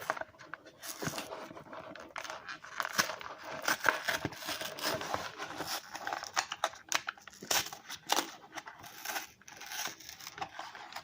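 Packaging of a Pokémon trading card box being torn open and handled, with irregular crinkling crackles and short rips throughout.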